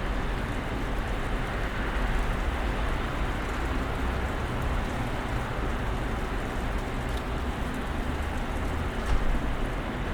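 Snowstorm ambience: a steady hiss of wind and falling snow over a constant low rumble, with a brief louder bump about nine seconds in.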